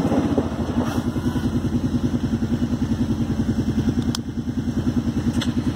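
ATV engine running at low speed with an even, rapid pulse. Its pitch drops shortly after the start as it eases off, then holds steady.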